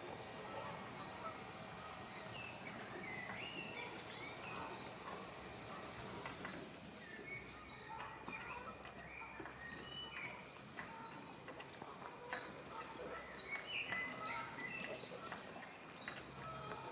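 Several songbirds singing at once: many short chirps, trills and whistles, overlapping.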